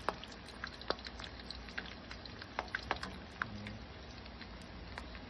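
Battered chicken feet deep-frying in hot oil in a wok: a steady sizzle broken by scattered sharp pops and crackles.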